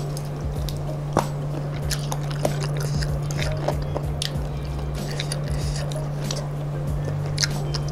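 Close-up chewing and biting of fried chicken and crispy kremesan crumbs, with many short sharp crunchy clicks scattered throughout, over a steady low hum.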